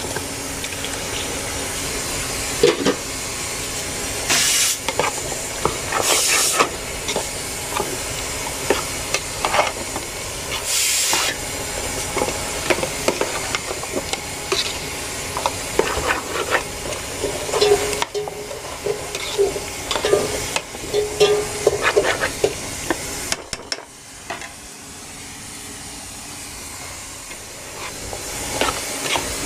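A metal spoon stirs and scrapes raw chicken pieces into a hot chickpea masala in a metal pot, with scattered clicks of the spoon against the pot over a steady hiss of cooking. The hiss surges a few times early on and drops quieter a few seconds before the end.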